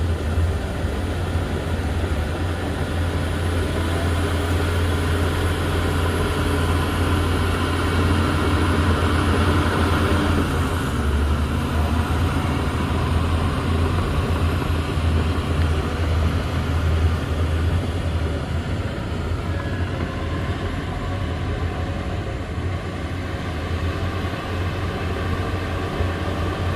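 Heavy diesel engine of earthmoving machinery running steadily, with a deep continuous rumble that swells slightly partway through.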